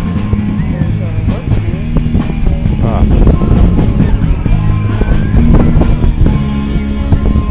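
Loud music with guitar over a steady bass line.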